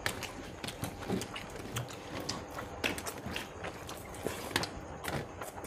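People eating rice and fish curry by hand: irregular small clicks and smacks of chewing and mouth sounds.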